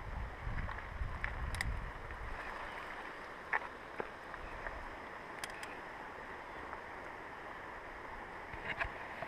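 Steady rushing of a river running over rocks, with a low wind rumble on the microphone for the first couple of seconds and a few small clicks and knocks from handling.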